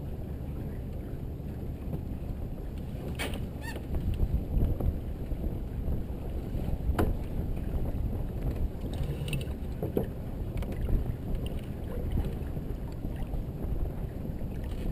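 Wind buffeting the microphone and water rushing along the hull of a Merit 25 sailboat under sail, with a few sharp knocks from the boat, about three.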